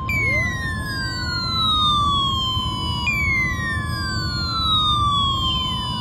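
NOAA Weather Radio's steady 1050 Hz warning alarm tone, sent as part of a required weekly test, with a weather radio's alert siren sounding over it as the tone triggers the receiver: a falling wail that repeats about every three seconds.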